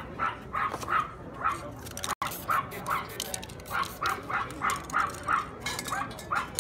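A dog barking over and over at a steady pace, about two or three barks a second. The sound cuts out for an instant about two seconds in.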